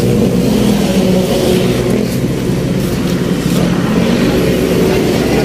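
A vehicle engine running steadily close by: an even, low drone that holds its pitch.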